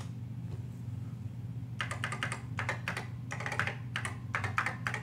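Typing on an original Apple Macintosh M0110 mechanical keyboard: a quick, irregular run of key clicks starting about two seconds in.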